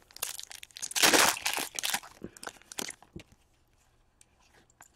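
Foil wrapper of an Upper Deck hockey card pack being torn open and crinkled, loudest about a second in, followed by a few light clicks of the cards being handled.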